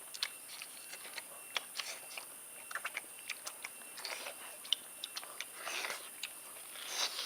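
Irregular sharp clicks, several a second, with a few short crunching sounds in between.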